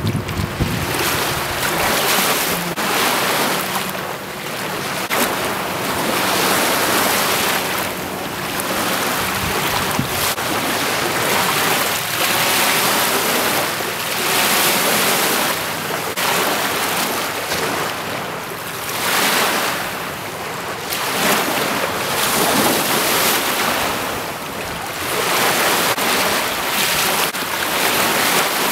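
Small lake waves lapping and breaking on the shore, a rushing wash that swells and fades every two to three seconds. Wind buffets the microphone with a low rumble near the start.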